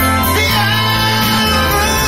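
Live rock band playing, with electric guitars, keyboard and drums, and long held notes that bend in pitch.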